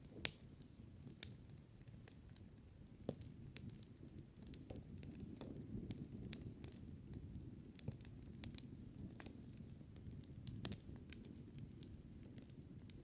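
Campfire burning with a low rumble of flame and scattered sharp crackles and pops, the loudest right at the start. A short high chirping trill from a bird cuts in about nine seconds in.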